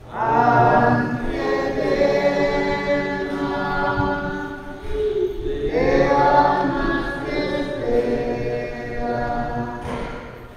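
Church choir singing, voices holding long notes in phrases, with a brief pause between phrases about five seconds in and another near the end.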